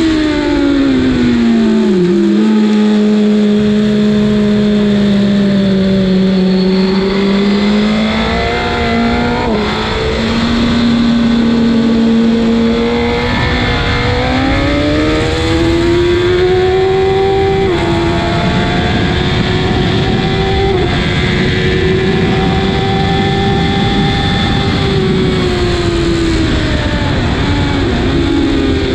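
Suzuki GSX-R1000's inline-four engine being ridden hard on track. Its pitch falls at the start and holds low for several seconds, then climbs with abrupt drops at each gear change. It holds steady for a while and falls again near the end.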